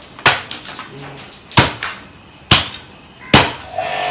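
A large fish-cutting knife chopping through a fish head on a wooden chopping block: four hard strikes about a second apart, with lighter knocks between. A steady hum starts near the end.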